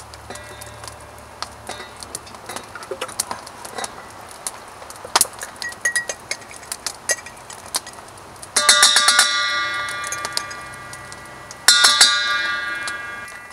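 A metal spoon striking the rim of a steel cooking pot twice, about three seconds apart, each strike leaving a ringing tone that fades over a couple of seconds. Before that, soft wet clicks and scrapes as chili is spooned from a glass jar into the pot.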